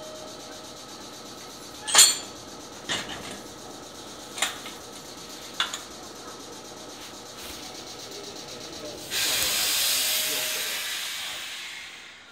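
A few sharp clacks, the loudest about two seconds in, from coupler work on a Meitetsu electric train. About nine seconds in comes a sudden loud hiss of compressed air venting from the train's air system, which fades away over about three seconds.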